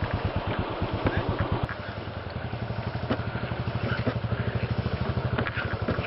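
Single-cylinder motorcycle engine running with a rapid, even beat on a dirt trail. The beat changes abruptly about two seconds in, and a few light clicks and clatters follow.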